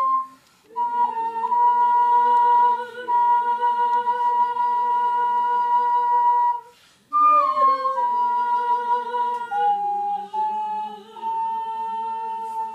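Ocarina playing a slow melody in long held notes, breaking off briefly for breath about half a second in and again about seven seconds in, then stepping down through several notes before settling on a held one.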